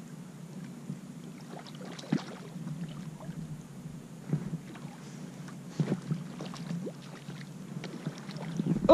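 Low water and hull noise from a fishing kayak, with scattered light knocks and taps, as a hooked fish is played on the line. Near the end the fish splashes at the surface.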